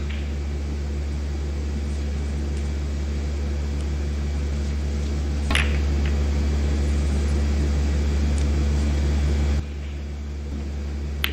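Steady low hum of a quiet snooker arena, broken by the sharp clicks of snooker balls being struck: a faint one at the start, a crisp one about five and a half seconds in, and another at the very end.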